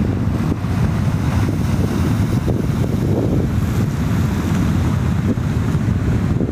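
Wind buffeting the microphone in a steady low rumble, over the wash of sea waves on the shore.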